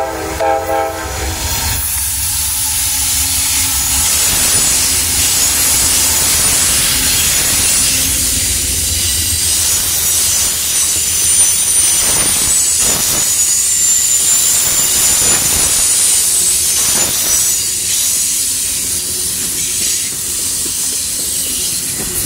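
Amtrak passenger train, led by GE P42DC locomotives, passing close at speed. The horn's chord cuts off about a second in, and the locomotives' heavy low rumble fades over the first ten seconds. The passenger cars then roll by in a steady rush, with thin, high wheel-on-rail squeal and a few clacks over rail joints.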